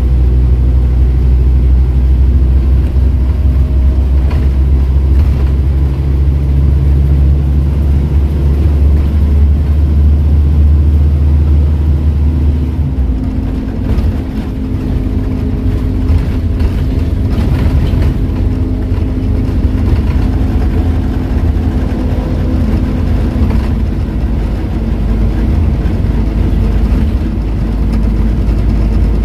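Scania N230UD double-decker bus heard from inside the passenger cabin while driving: its five-cylinder 9.3-litre diesel engine and ZF automatic gearbox make a loud, steady hum. About thirteen seconds in, the deep engine note changes abruptly.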